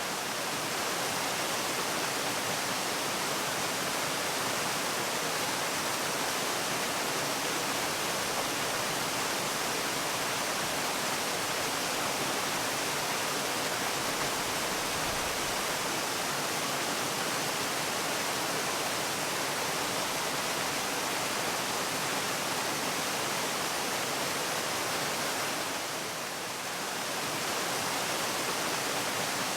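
Waterfall: steady rushing water, an even hiss with a slight brief dip in loudness near the end.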